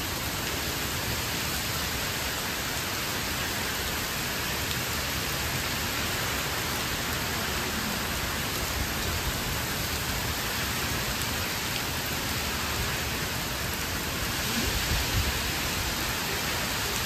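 Very heavy rain pouring down, a dense steady hiss of the downpour, swelling briefly louder near the end.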